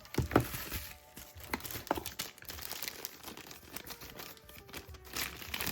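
Plastic packaging crinkling and tearing in irregular bursts as a radio's battery pack is unwrapped by hand, over faint background music.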